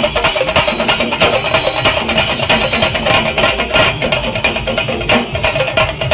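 A Kerala chenda drum ensemble playing a fast, dense, steady beat, many drums struck together.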